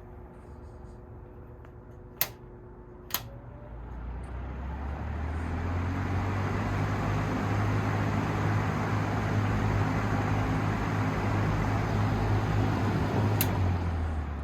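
Air King PL20P box fan with a Westinghouse motor and three metal blades: two clicks of its speed switch, then the fan spins up over a few seconds to a steady hum and rush of air. Another switch click comes near the end, and the hum begins to fall away.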